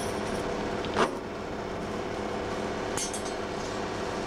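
Belt polishing machine (Pliestbock) running with a steady hum as scissor eyes are polished on its abrasive belt; a sharp clink of metal about a second in and a brief high scraping near three seconds in.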